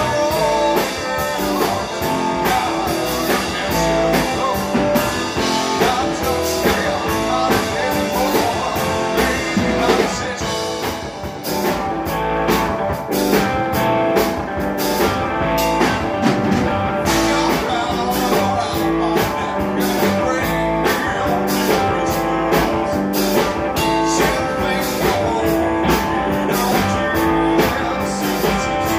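Live rock band playing: an electric guitar through an amplifier over a drum kit, with a male voice singing.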